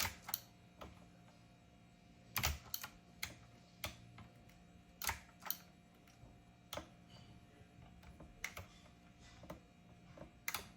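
Keys of a typewriter-style keyboard with round keycaps clicking as they are pressed, a few at a time with pauses between, in an irregular rhythm.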